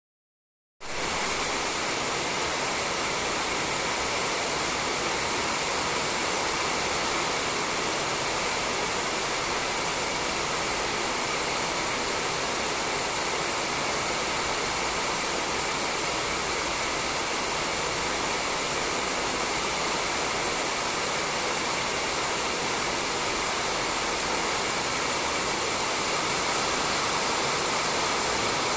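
Rain falling on a roof: a steady, dense hiss that cuts in abruptly out of silence about a second in.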